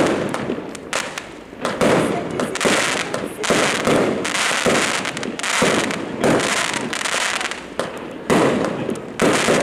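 Fireworks going off in quick succession: a bang roughly every second, each followed by a hissing, crackling tail.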